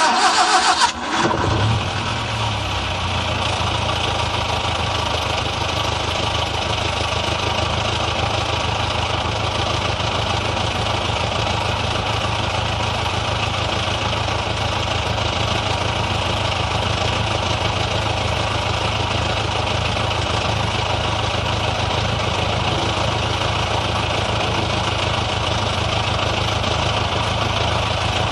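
Old car engine starting: it fires right at the start, runs louder and unevenly for a second or two, then settles into a steady idle.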